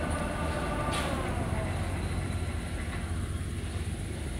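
Large spindle veneer peeling lathe running: a steady low machine hum with a whine that fades out about two seconds in, and a single sharp click about a second in.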